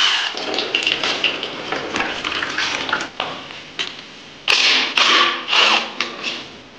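Motorcycle engine strip-down noises: a brief whir of a cordless power tool spinning off the coolant drain bolt, then clicks, scrapes and rubbing as coolant hoses and hose clamps are worked off and the engine-mount bolts are loosened, with several louder rasping sounds in the second half.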